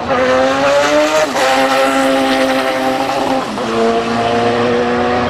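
Sport motorcycle engines at full throttle in a drag race. The pitch climbs, then drops at two upshifts, about a second and a half and three and a half seconds in.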